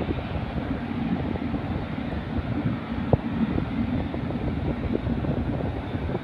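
Strong wind buffeting the microphone, with a steady low drone of jet aircraft engines underneath. A single sharp click about three seconds in.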